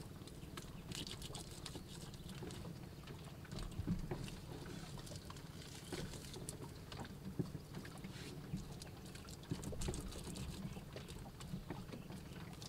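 Bare hands smearing, pressing and patting wet mud onto a mud stove, heard as irregular short slaps and scrapes.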